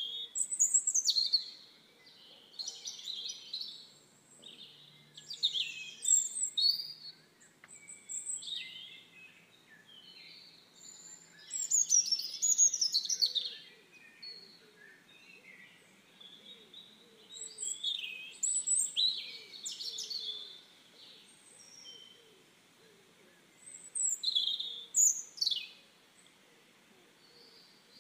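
Songbirds singing: bursts of quick, high chirps and trills every two or three seconds, with short pauses between.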